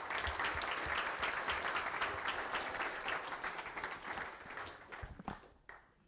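Audience applauding, a dense run of clapping that thins out to a few last scattered claps near the end.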